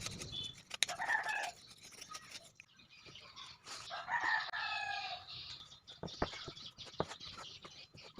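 Rooster crowing twice, about a second in and again around four seconds in, followed by a few sharp taps.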